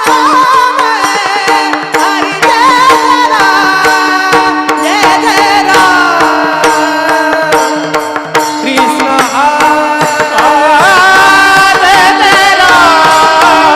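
Devotional kirtan singing: a voice holds and bends ornamented notes over a steady drone, with hand-drum strokes keeping the beat.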